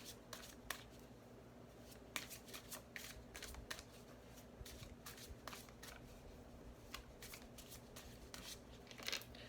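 A deck of cards being shuffled by hand, heard faintly as scattered light flicks and snaps of card on card.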